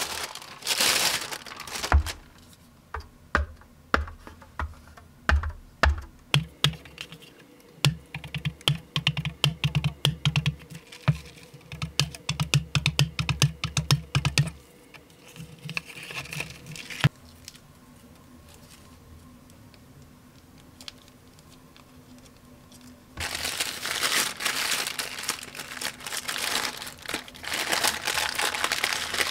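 Paper delivery bag and wrappers crinkling, then a plastic straw jabbed and tapped again and again against the sealed film lid of a fast-food soda cup: a long run of rapid taps and thuds as it fails to pierce the seal. After a quiet spell, a burger's paper wrapper crinkles near the end.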